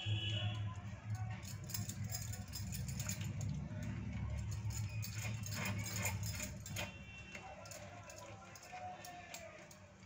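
Blue plastic spoon stirring a thick flour-and-milk batter in a small bowl, a run of quick light clicks and scrapes against the bowl that thins out toward the end. A steady low hum runs underneath.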